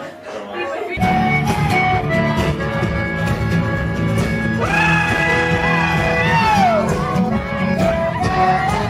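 Rock band music: drums and bass kick in about a second in under guitar, with a long held high note in the middle that slides downward.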